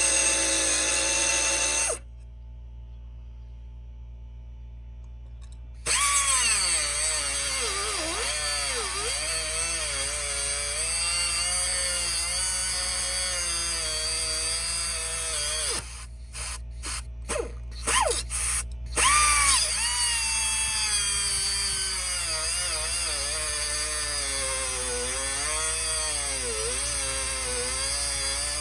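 Angle grinder with a cutoff disc cutting metal, its motor pitch dipping and rising under load. It drops away for a few seconds near the start. About halfway through it is blipped on and off several times before running steadily again.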